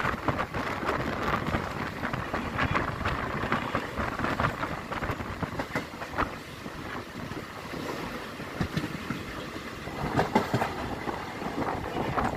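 Passenger coach of the Uttarbanga Express running along the track, heard from its open side: a steady rumble and rattle of wheels on rails with irregular clacks and knocks, and a louder run of knocks about ten seconds in.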